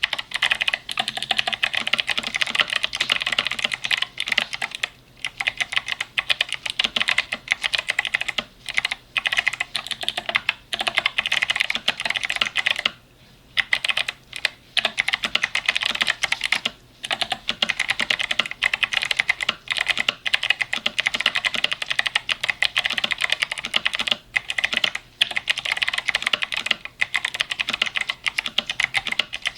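Fast continuous typing on a mechanical keyboard with clicky Kailh switches, a dense run of sharp clicks broken by brief pauses, the longest about 13 seconds in.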